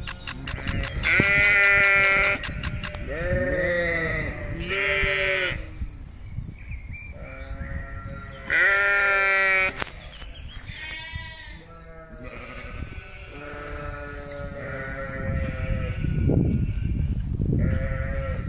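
Sheep bleating, a long run of drawn-out, wavering calls one after another, the loudest about a second in and again near the middle.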